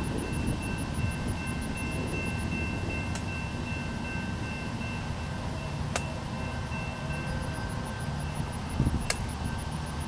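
Stainless-steel streamlined passenger cars rolling slowly past, their wheel flanges squealing in several steady high tones over a low rumble of the wheels, with three sharp clanks spaced about three seconds apart.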